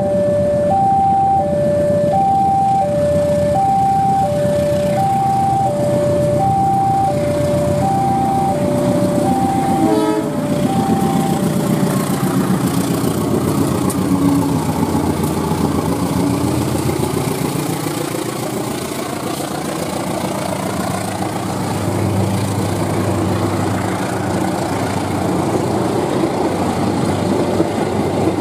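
Railway level-crossing alarm sounding an alternating high-low two-tone signal, about two tones a second, which stops about twelve seconds in. A diesel locomotive hauling passenger carriages passes, its engine sound rising and falling as it goes by, then the carriages rumble along the rails.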